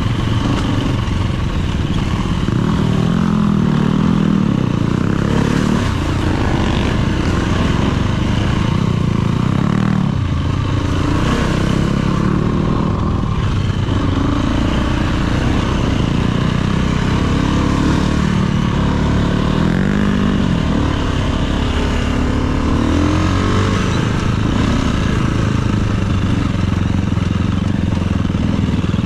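Dirt bike engines running on a trail ride, the pitch repeatedly rising and falling as the throttle is opened and eased off.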